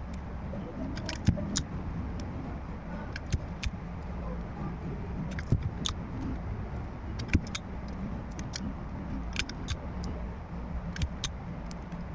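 Small sharp clicks and taps, scattered irregularly, from handling tools and parts while working on a smartphone, over a steady low background rumble.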